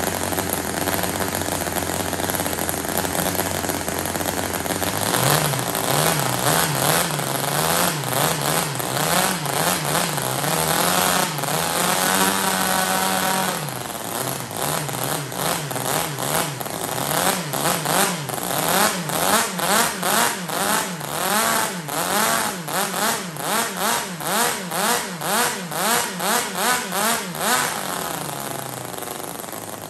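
TOYAN RS-S100 single-rotor model rotary (Wankel) engine running on a test stand, steady at first and then revved over and over by hand on the throttle. Its pitch rises and falls about once a second, holds higher for a couple of seconds midway, and settles lower near the end.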